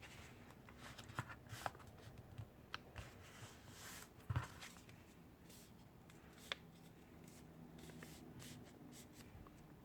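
Faint rustling and creasing of thick folded paper being handled, with a few soft clicks and ticks, the loudest about four seconds in.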